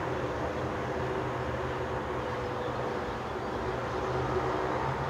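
Steady wash of city traffic noise rising from the road below a high-rise balcony, with a faint steady hum running under it.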